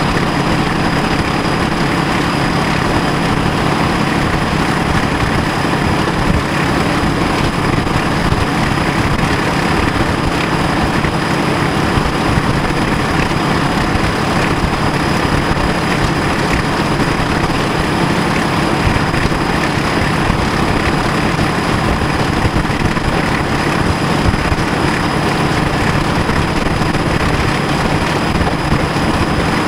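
British Rail Class 14 diesel-hydraulic locomotive's Paxman Ventura diesel engine running steadily as the locomotive travels along the line, heard close up from the cab beside the engine bonnet, with the low rumble of the running gear underneath.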